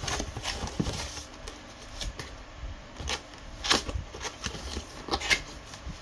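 Cardboard box being handled and its top flap pulled open: scattered rustles, scrapes and sharp taps, loudest about two-thirds of the way through and again near the end.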